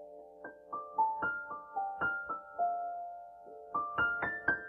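Solo piano played slowly and softly: a held chord dies away, then single notes are struck one after another, coming a little quicker near the end.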